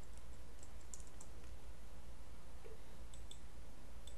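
Computer mouse clicking: a few faint clicks about a second in and a quick pair about three seconds in, over a steady low hum.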